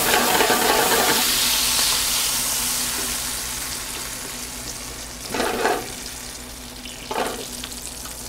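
Pepper-crusted steak searing in a sauté pan as a splash of cognac flames off: a loud sizzle and rush of flame at first that steadily dies down. Two short louder bursts about five and seven seconds in as metal tongs work the steak in the pan.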